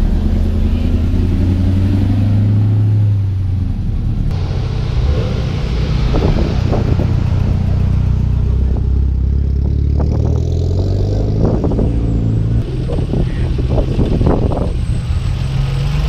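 Car engines idling with a low, steady rumble that shifts slightly in pitch now and then, the sound changing abruptly twice.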